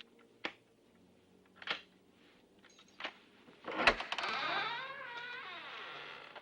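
Film soundtrack sound effects: three sharp clicks, spaced about a second apart, then a sudden loud hit about four seconds in, followed by an eerie tone that wavers and bends in pitch until near the end.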